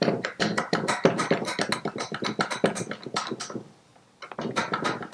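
Rapid, irregular clicking of an adjustable spanner being worked back and forth on the seized oil cooler union nut of a Citroën 2CV engine's crankcase; the clicking pauses briefly a little before four seconds in, then starts again.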